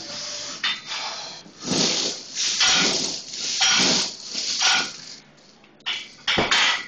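Quick floor-press reps with a chain-loaded barbell: four loud rushing bursts about a second apart, one per rep, then a sharp clank near the end as the bar is racked.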